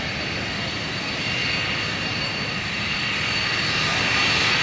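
A BAe 146-300 airliner taxiing on its four Lycoming ALF502 turbofan engines at low power: a steady jet rumble with a thin high whine. It grows a little louder toward the end as the aircraft swings toward the listener.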